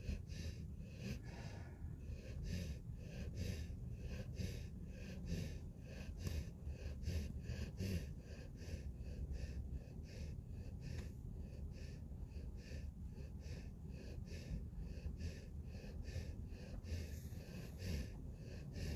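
A sleeping puppy snoring, with quick, even, snuffly breaths at about three a second.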